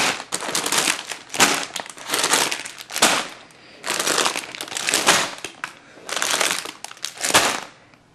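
Sealed clear plastic bags of LEGO pieces crinkling as they are handled and set down one after another, in a series of rustles with short lulls between them.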